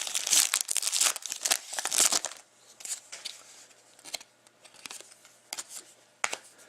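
Foil wrapper of a hockey trading card pack crinkling and tearing as it is opened, for about two seconds, then only a few faint scattered rustles and clicks.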